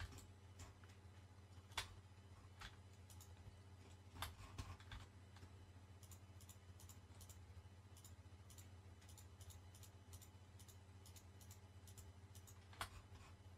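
Near silence: faint, scattered computer mouse and keyboard clicks, a few close together about four seconds in, over a low steady hum.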